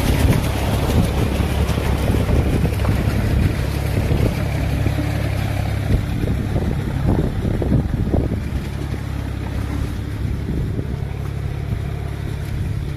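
Tractor engine running steadily, a low drone, under wind rumble and handling knocks on a phone microphone carried by someone walking.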